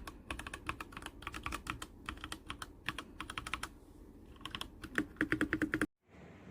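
Typing on an AJAZZ AK680 68-key hot-swap mechanical keyboard: quick runs of keystroke clicks and clacks in bursts, which stop abruptly near the end.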